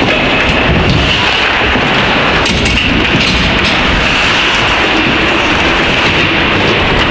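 Loud, steady game noise at an ice hockey rink, heavy enough to overload the microphone, with scattered sharp clicks through it.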